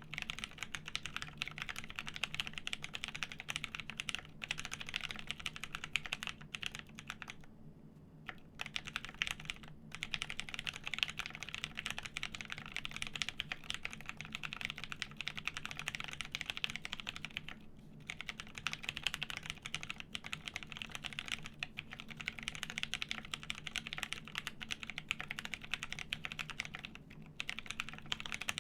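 Continuous typing on a plateless custom mechanical keyboard with lubed Pewter switches and G81-1800 keycaps: a dense, steady stream of key clacks with a few brief pauses.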